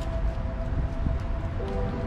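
Water from a garden hose running into a galvanized steel stock tank as it fills, a steady rushing noise. Held musical tones that change pitch now and then sound over it.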